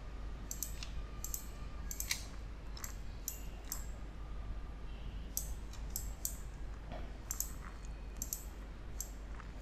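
Computer mouse clicking irregularly, often in quick pairs, as control points are selected and dragged. A faint steady low hum lies underneath.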